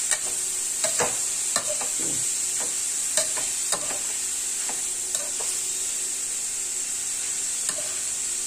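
Grated turnip and green peas sizzling in hot oil in a metal kadai, with a slotted spatula scraping and clinking against the pan as the mixture is stirred. The sizzle is a steady hiss, and the clinks come irregularly, about one or two a second, with fewer in a stretch past the middle.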